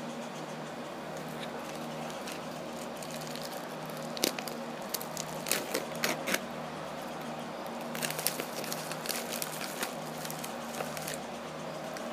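Tobacco pipe being puffed: two spells of quick little pops and crackles, about four seconds in and again about eight seconds in, over a steady low hum.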